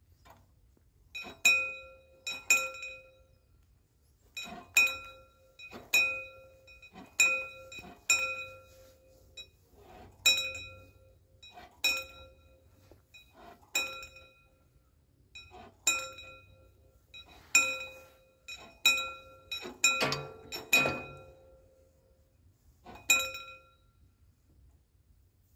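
Warning bell of a mechanical, remotely cranked railway level-crossing barrier ringing single clear strikes at irregular intervals of about one to two seconds as the booms are lowered. The strikes bunch up with some clanking around twenty seconds in, and the last one comes shortly before the booms are down.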